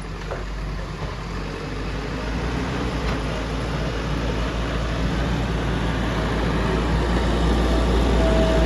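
JCB 3DX backhoe loader's diesel engine running with a low, steady rumble that grows gradually louder, with a thin whine coming in near the end.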